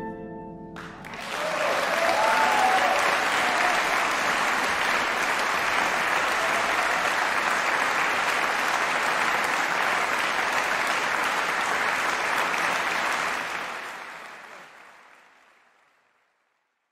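The last held note of a soprano saxophone and harp stops just under a second in, followed by steady audience applause that fades out near the end.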